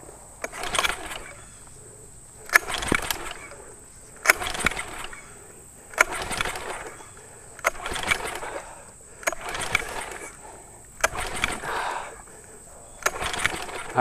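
Recoil pull-start of a Mercury 6 HP four-stroke outboard, pulled eight times about every two seconds: each pull a sharp click and then about a second of rope whir as the engine turns over without firing. The kill-switch lanyard is out, so there is no spark, and full choke is on to flood the motor deliberately.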